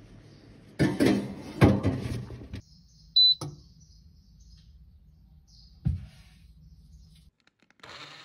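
Handling noises: about two seconds of loud rustling and knocking, then a single short high electronic beep typical of an appliance's control panel, a click, and a single dull thump later on.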